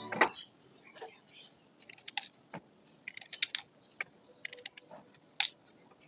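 Kitchen knife cutting pieces of peeled gaderi (large taro root) over a steel plate: short, crisp clicks and scrapes of the blade through the hard root, coming in irregular clusters about a second apart.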